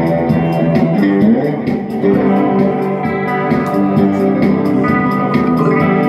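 Electric guitar played live through an amplifier, notes ringing over a steady rhythm of about four clicks a second.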